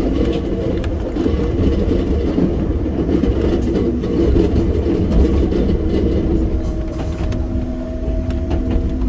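Enoshima Electric Railway 300-series electric train running along the track, heard from inside the car: a steady rumble with scattered clicks from the rails. A steady tone joins about seven seconds in.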